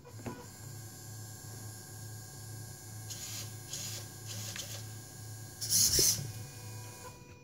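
Electric window motors and servos of a home-built drive mechanism whirring in short bursts as they are driven, over a steady low hum. The last burst, about six seconds in, is the longest and loudest.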